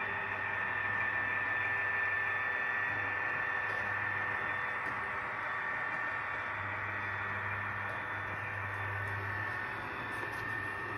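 Two HO scale model diesel locomotives running on the layout: a steady, tinny hissing drone with a constant high whine and a low hum that grows a little stronger past the middle.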